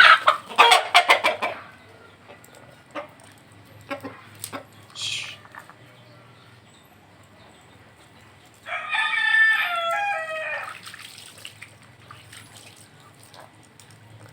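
Chickens: a loud, rapid flurry of sharp sounds in the first second and a half, a few short calls after it, then a rooster crowing once for about two seconds, starting about nine seconds in.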